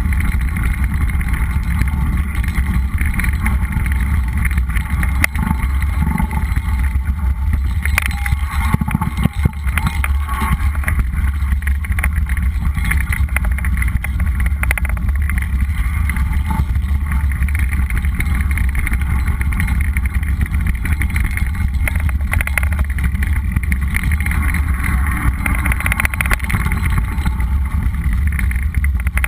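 A mountain bike rolling over a dry dirt trail, heard from a camera mounted on the rider or bike: a steady rumble of tyres and rushing air on the microphone. A cluster of knocks and rattles comes about eight to ten seconds in as the bike goes over bumps.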